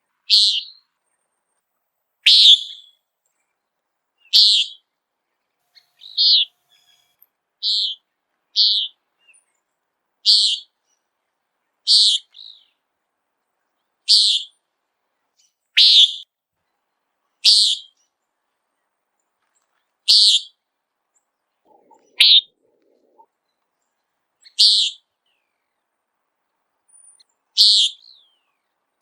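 Common nighthawk giving its sharp, nasal "peent" call: a short single note repeated about every two seconds, some fifteen times.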